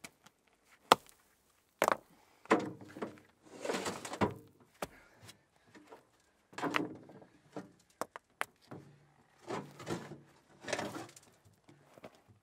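Irregular knocks and thuds, a dozen or so, some sharp and some with a short scraping rustle after them, separated by near-silent gaps.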